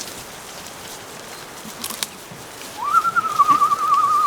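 A single high whistled note comes in about three seconds in. It slides up at the start, then warbles quickly for about a second and a half.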